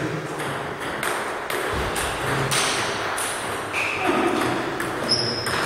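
Table tennis balls clicking off bats and tables, an irregular patter of clicks from several rallies at once, with two brief high squeaks, one near the middle and one near the end.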